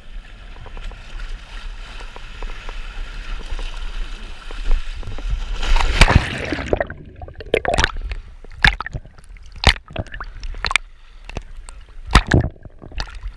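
Steady rush of wind and water at the surface, then a loud splash about six seconds in as a freediver drops into the sea. After it the sound turns muffled and underwater, broken by sharp splashes and sloshing as the camera bobs in and out of the surface.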